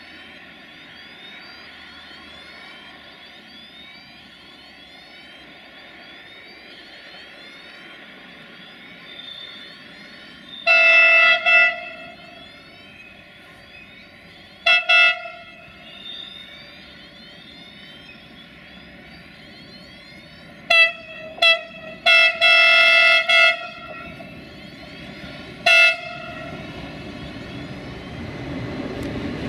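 Horn of an approaching electric freight locomotive sounding a multi-note chord in a series of blasts: one long blast, a short one, a quick cluster of toots ending in a longer blast, then a last short toot. Underneath, the train runs steadily and grows louder near the end as it draws close.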